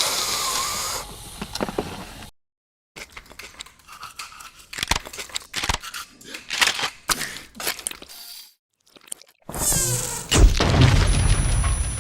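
Cartoon sound effects: after a brief silence, a run of sharp clicks and knocks at irregular intervals, then another short silence and a loud burst with a low rumble near the end.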